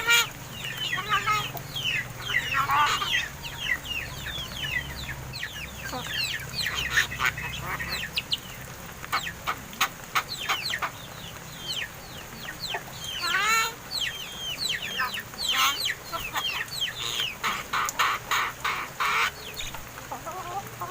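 Pet crested mynas chattering: a fast, continuous run of short harsh calls and squawks, busiest a little past the middle and again near the end.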